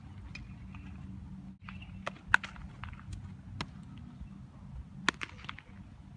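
Several sharp cracks and knocks of baseball fielding practice, a ball striking a bat and leather gloves, over a steady low background noise. The loudest crack comes a little over two seconds in, and another strong one near five seconds.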